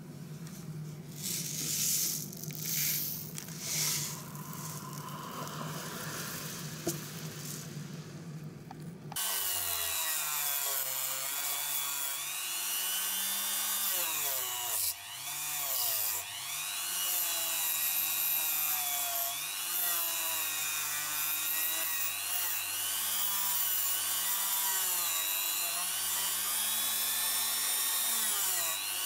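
Handheld rotary tool spinning a brass wire wheel against the die-cast metal body of a toy car, brushing off the remains of the old paint. It starts about nine seconds in after some quieter rubbing sounds, and its whine dips and rises as the wheel is pressed against the metal.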